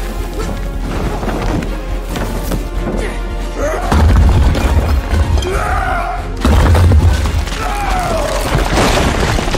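Dramatic film score under a fight scene, with heavy, deep booming hits about four and six and a half seconds in and crashing impacts.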